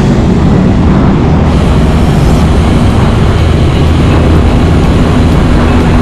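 Loud, steady wind rumble over an action camera's microphone while riding a mountain bike along the road.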